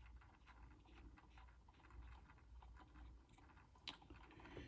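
Near silence: faint light scratching and tiny ticks from a small lacquer brush working over a 3D-printed earpiece shell, with one sharper click near the end, over a low hum.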